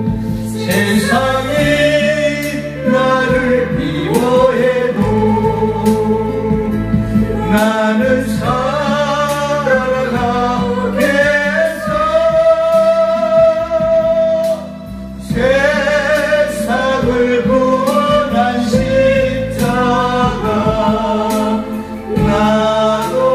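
Korean gospel song sung as a duet by a woman and a man into microphones, over a recorded accompaniment with a bass line and a steady beat. The music drops briefly about two-thirds of the way through, then carries on.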